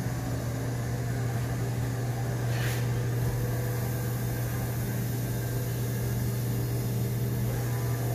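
Steady low hum of kitchen machinery, with a brief rustle about three seconds in.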